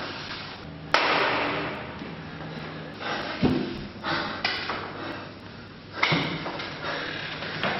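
A man panting heavily, with a few sudden thuds, the first about a second in, trailing off in an echo.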